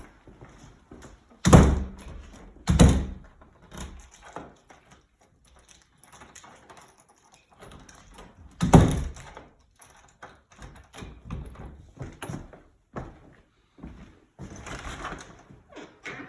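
A door being shut with heavy thuds. There are three loud bangs, the first two about a second apart near the start and the third about 9 seconds in, with smaller knocks and handling noises in between.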